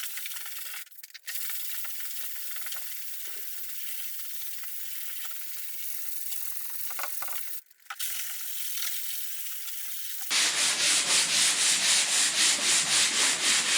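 Body filler being hand-sanded with sandpaper on a straight wooden sanding block, a dry rasping rub with two brief pauses. About ten seconds in it turns into loud, rhythmic back-and-forth strokes, roughly four a second.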